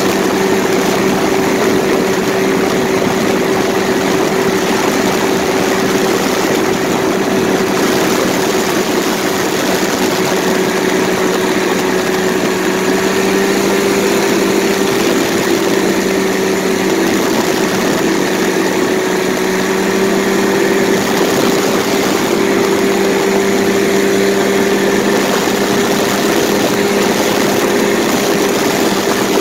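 Paramotor's two-stroke engine and propeller running steadily at cruise power in flight: a constant, even drone with no change in pitch.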